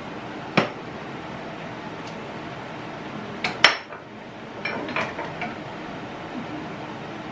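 A spoon knocking and scraping against a saucepan and a casserole dish as minced meat is spooned from one into the other: a sharp clink about half a second in, two louder knocks near the middle, then a few lighter taps. A steady hiss runs underneath.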